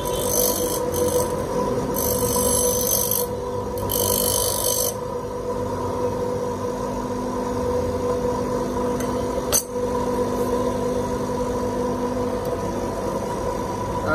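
Hitachi NTG-150W 150 mm bench grinder running with a steady hum. Three short bursts of grinding come in the first five seconds as a piece is pressed against a wheel, and there is a single sharp click a little before the tenth second.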